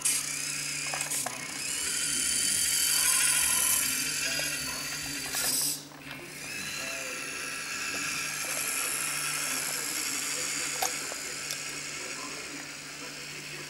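Siku Control radio-controlled model tractor (Steyr CVT 6230 conversion) driving with a trailed disc harrow: the steady whine and rattle of its electric drive motor and gearbox. It is loudest in the first few seconds, drops sharply about six seconds in, then goes on steadier and a little quieter, with a few light clicks.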